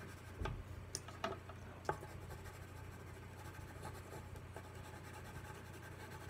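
Colored pencil scratching on paper in short shading strokes, with a few light taps in the first two seconds.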